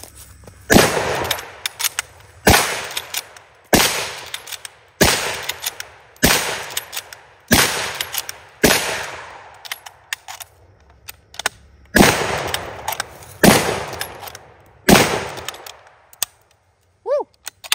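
Lee-Enfield No. 4 Mk I bolt-action rifle in .303 British fired rapidly, ten shots: seven about a second and a quarter apart, a pause of about three seconds, then three more. The bolt clacks between shots.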